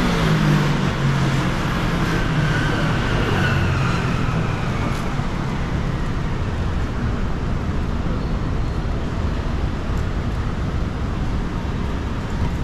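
City street traffic: a motor vehicle passes in the first few seconds, its engine tone falling in pitch as it goes by, over steady street noise.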